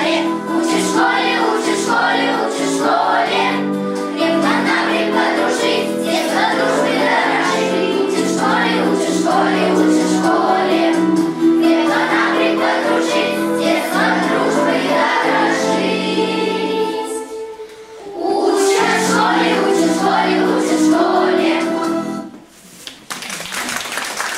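Children's choir singing a song with backing music, with a short break about three-quarters of the way through. The song ends near the end and applause begins.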